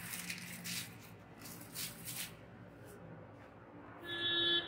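Thin clear plastic packaging crinkling and rustling as it is pulled off and handled, loudest in the first two seconds. Near the end a short, loud pitched tone sounds.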